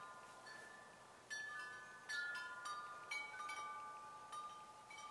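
Faint wind chimes ringing: irregular soft strikes a second or less apart, each note ringing on and overlapping the next.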